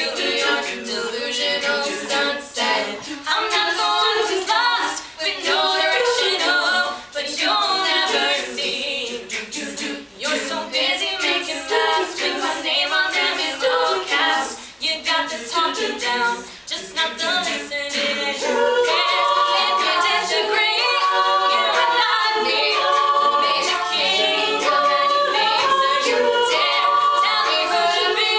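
All-female a cappella group singing, a soloist over backing voices with no instruments. The phrases come in short stop-start bursts at first, then from about 18 seconds in the voices hold fuller, steadier chords.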